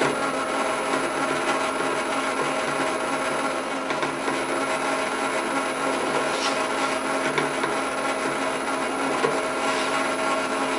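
Bench drill press running steadily, with its motor humming, while a starter drill cuts spot holes into linen-reinforced phenolic sheet.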